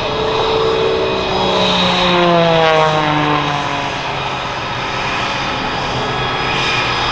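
Aerobatic Pitts S2S biplane's Lycoming engine and propeller at high power making a pass, loudest about two seconds in, its pitch dropping as it goes by.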